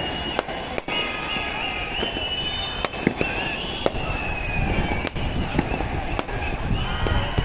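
Fireworks and firecrackers going off in a celebrating crowd: sharp bangs about once a second over a steady crowd din, with long, high whistling tones running through it.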